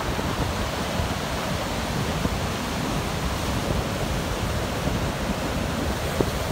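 Rough surf breaking and washing up a beach: a steady, unbroken rush of churning water.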